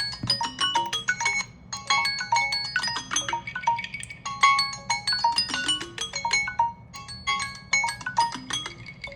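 Smartphone alarm or timer ringtone: a marimba-like melody of bright struck notes, the same short phrase repeating about every two and a half seconds.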